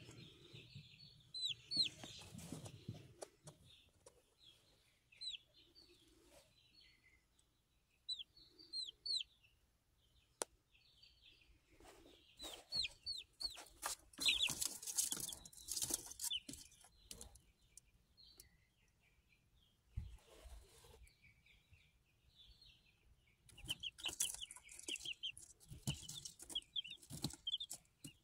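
Young chicks peeping in scattered clusters of short, high chirps, with bursts of rustling in between.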